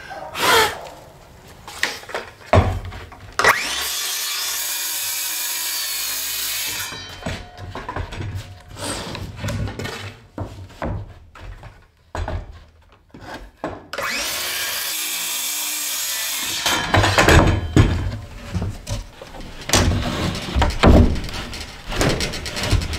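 Circular saw cutting a plywood sheet, two steady cuts of about three seconds each. Knocks and thumps of the wood being handled and set down come between and after the cuts.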